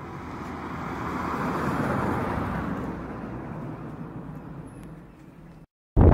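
Road noise of a moving car heard from inside it: an even tyre and wind hiss that swells about two seconds in, fades, and cuts off abruptly shortly before the end.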